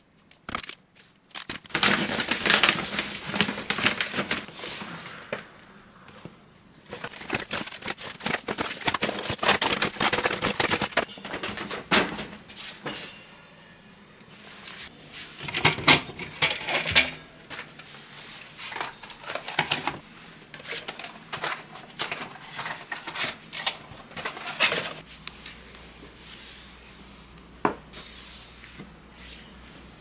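Household items being handled and put away: rustling along with the clatter and knocks of bottles, containers and tins set on cupboard shelves, in irregular bursts with quieter gaps. There is one sharp click near the end.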